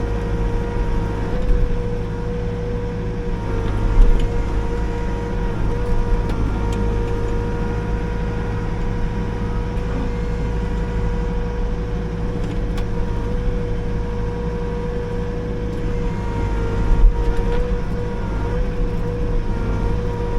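Liugong 9051F mini excavator's diesel engine running steadily with a constant whine while it works at a hedge tree. A few sharp knocks come through, the loudest about four seconds in and again near the end.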